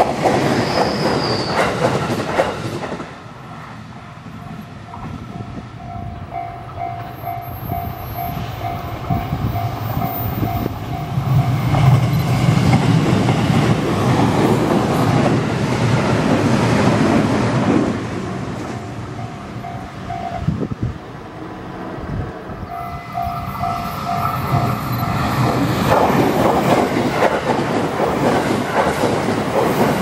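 JR Chūō Main Line electric multiple units (211 and 313 series) passing a level crossing, their wheels clattering on the rails. The passes come near the start, around the middle and near the end. In the quieter stretches between them, the crossing's electronic warning bell rings in a rapid, evenly repeated beat.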